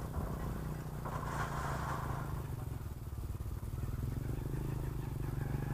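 An engine running with an even low pulsing beat, growing slowly louder near the end.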